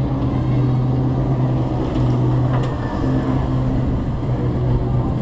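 Ride machinery of a spinning hippo-car flat ride running with a steady low hum, heard from a moving car, with wind noise rushing over the chest-mounted microphone. There is a faint tick about two and a half seconds in.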